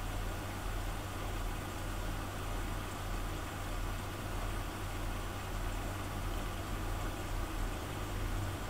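Steady low hum with an even hiss behind it: background room noise with no speech and no distinct events.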